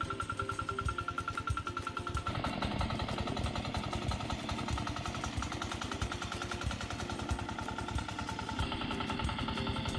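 Small single-cylinder diesel engine of a walk-behind hand tractor running steadily under load with a rapid, even knocking beat as the tiller works through tall grass; the sound shifts in tone about two seconds in.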